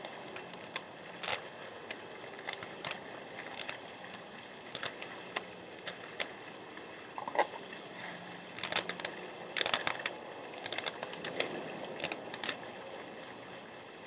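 Black bear scraping and clicking at ice in a bird bath basin, an irregular run of sharp scrapes and taps that grows busiest about two-thirds of the way in, over the steady hiss of a security camera's microphone.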